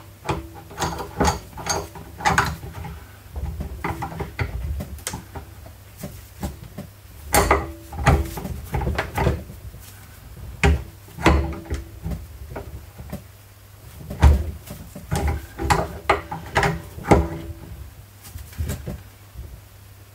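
Irregular metallic clicks and knocks from a steel tie rod end puller being fitted and adjusted by hand on a wheel hub, its parts and threaded bolt clinking against the hub.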